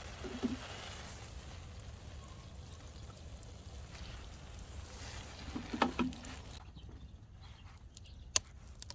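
Water trickling steadily, stopping abruptly about seven seconds in. A knock comes just before it stops, and a sharp click near the end.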